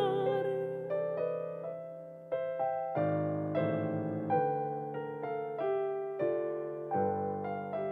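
Piano playing alone: separate chords and notes struck about once or twice a second, each left to ring and fade. The soprano's held note dies away in the first instant.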